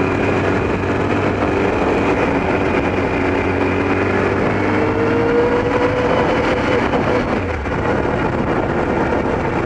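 Kawasaki ZX-12R's inline-four engine running under way, heard over steady wind and road noise. Its pitch rises slowly about four to six seconds in, then holds.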